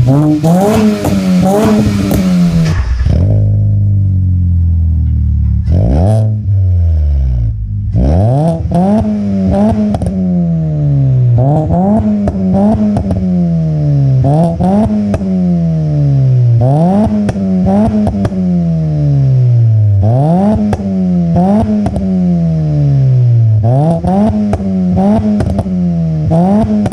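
Kia Rio's four-cylinder engine revved in quick repeated blips through an aftermarket cat-back exhaust, each one climbing to about 5,000 rpm and falling back, a little more than one a second. A few seconds in, the revving pauses briefly and the engine drops to a lower, steadier note before the blips resume.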